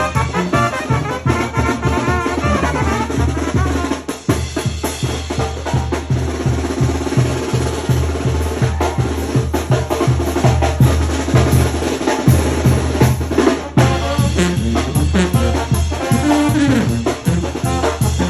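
Brass band music: trumpets and other brass playing over a steady bass drum and drum beat, with a brief drop in level about four seconds in.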